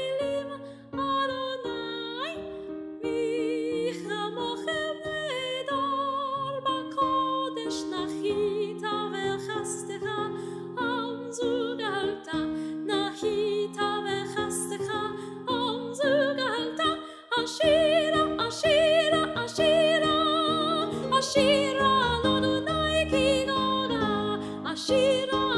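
A woman singing a ballad in a classical style with wide vibrato, over a recorded piano accompaniment.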